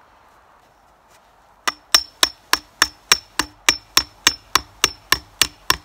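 About fifteen sharp metallic taps in an even rhythm, three to four a second, starting a little under two seconds in, each ringing briefly: metal knocking against a light aluminum support pole.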